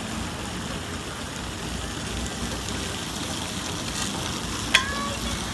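Steady hiss of splash-pad water jets and fountains spraying onto shallow water, with one sharp click near the end.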